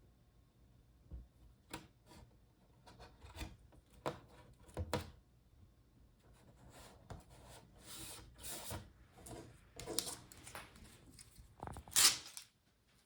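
Screen adhesive strips being peeled and pressed into a laptop's display lid: scattered rustles, light taps and short tearing sounds, the loudest a sharp rip near the end.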